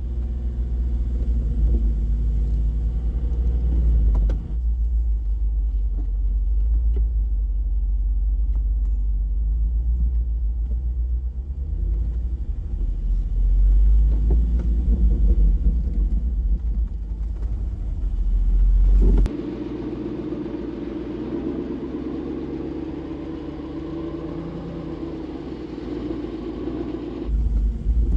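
Jeep Wrangler driving along a dirt trail: a steady, heavy low rumble of engine and travel. About two-thirds of the way through the sound cuts abruptly to a smoother engine drone, then cuts back to the rumble near the end.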